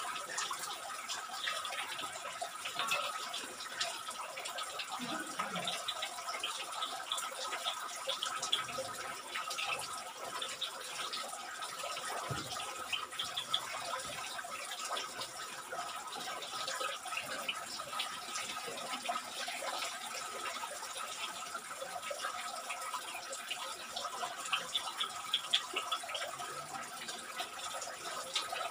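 Water trickling steadily with scattered drips, under a faint steady high tone.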